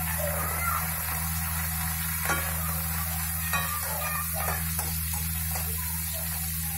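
Sliced onions sizzling in hot mustard oil in a steel kadhai, being sautéed to brown. From about two seconds in, a metal spoon stirs and scrapes against the pan in short irregular strokes, over a steady low hum.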